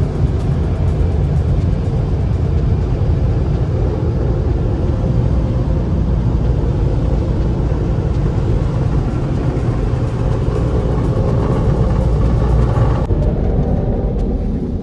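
Automatic car wash running, heard from inside the car: a loud, steady rushing noise over a low rumble, whose upper hiss drops away about thirteen seconds in.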